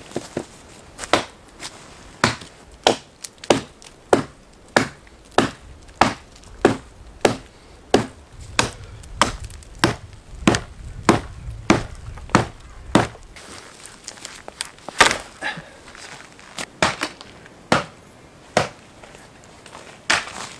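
Wood being chopped: a steady run of sharp blows, a little under two a second, for about thirteen seconds, then a few slower, irregular strikes.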